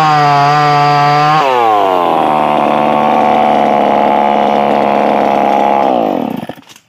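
Motoyama two-stroke chainsaw with a modified exhaust running loud at high revs. About a second and a half in it drops to a lower, steady speed, then winds down and stops near the end.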